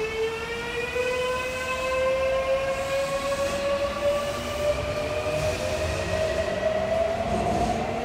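Toei 6300 series subway train's Mitsubishi IGBT-VVVF inverter and traction motors whining as the train pulls away, a stack of tones climbing steadily in pitch as it accelerates, over low rolling noise from the wheels.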